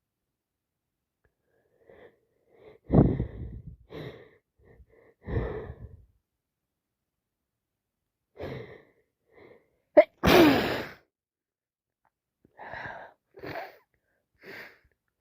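A person with a heavy head cold sneezing, the loudest sneeze about ten seconds in, with short breaths and sniffs before and after it and another strong burst about three seconds in.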